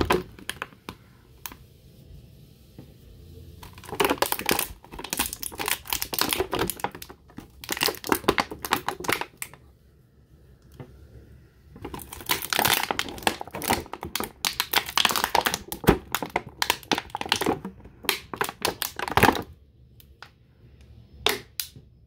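Thin clear plastic toy packaging crinkling and crackling in spells as hands pull the figures out of it, with short pauses between. It ends with a few light clicks.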